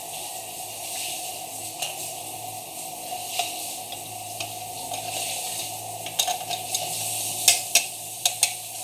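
Plastic parts of a Jura Z6 brewing unit being handled, with a series of sharp clicks and knocks from about six seconds in, over a steady hiss.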